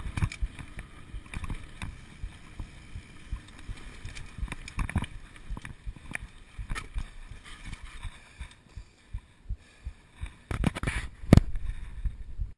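Single-speed mountain bike rolling over a rough dirt trail, rattling and knocking at irregular moments, with the sharpest knock about eleven seconds in.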